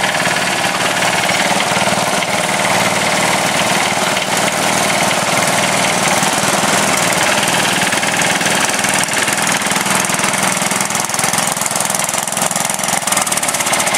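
Sears Suburban garden tractor engine running steadily as the tractor drives along.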